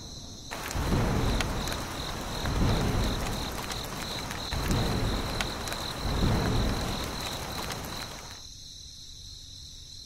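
Thunderstorm: steady rain hiss with thunder rolling in four low swells, over a continuous pulsing chirp of crickets. The rain and thunder stop about eight seconds in, leaving the crickets.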